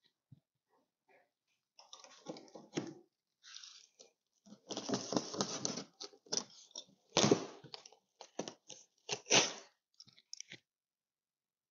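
Utility knife slicing through the packing tape and cardboard of a long shipping box, with the cardboard crackling and tearing as the edge is cut open. The cutting comes in a string of irregular scrapes and crackles that stop shortly before the end.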